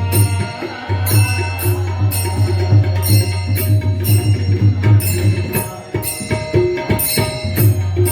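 Live Marathi kirtan music: hand-drum strokes with bright metallic strikes about twice a second in a steady devotional rhythm, over a sustained low drone.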